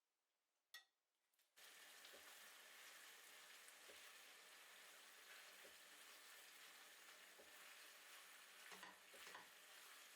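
Faint sizzling of food frying in a pan, starting abruptly about a second and a half in after a single click, with light knocks every second and a half or so and a brief scraping near the end.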